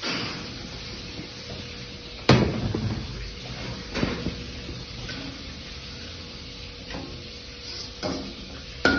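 Metal ladle knocking and scraping in a wok on a gas range, a handful of sharp clanks, the loudest about two seconds in, over a steady background hiss.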